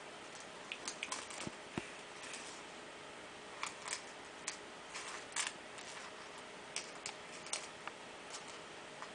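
A kitten playing with a small feathered toy on a wooden floor: irregular soft clicks and rustles from its paws, claws and the toy, coming in small clusters.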